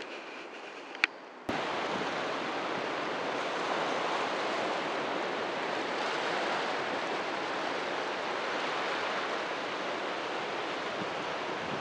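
Steady rushing water, an even unbroken noise with no distinct splashes. It cuts in abruptly about a second and a half in, after a quieter stretch that holds one sharp click.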